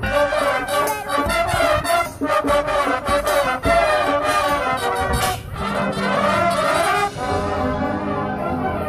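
Marching band brass section playing loudly over sharp percussion hits, with a short drop about five and a half seconds in and then a held chord.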